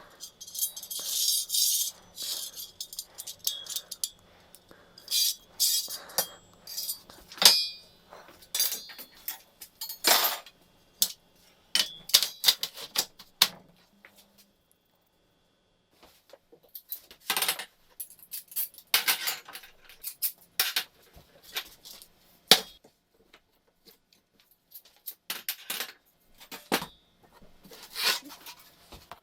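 Metal parts clinking and knocking against each other in irregular bursts, with a pause of a couple of seconds near the middle.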